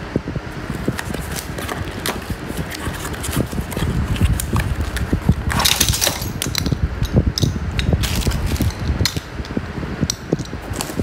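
Unpacking sounds: metal hooks and caster parts of a laundry organizer clinking and knocking together, with cardboard and plastic wrapping handled. Scattered sharp clicks run over a low steady rumble, with a louder rustling burst just before six seconds in.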